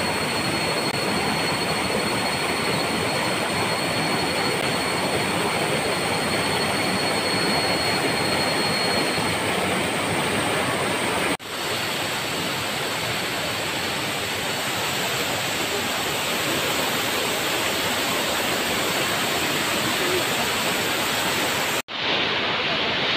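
Steady roar of a waterfall's falling and rushing water. The sound breaks off briefly twice, about 11 and 22 seconds in.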